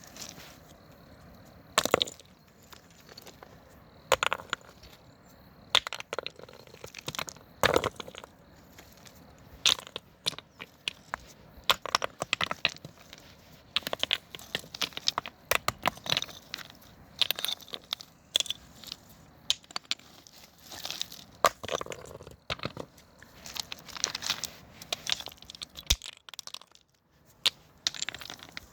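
Pebbles falling onto a bed of other pebbles: sharp stone-on-stone clacks and rattles, coming singly and in irregular clusters.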